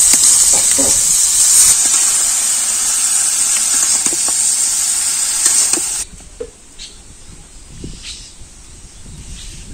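Vegetables sizzling loudly in hot oil in a karai, stirred with a metal spatula, with a few scrapes and clicks. The sizzle cuts off suddenly about six seconds in, leaving a faint outdoor background with a few light ticks.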